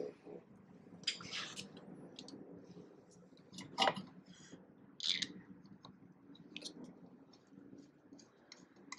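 Faint, scattered clicks and short scrapes of small screws and a T25 Torx screwdriver being handled as the screws are started back into the trailer socket's mounting plate, with the sharpest clicks near 4 and 5 seconds in.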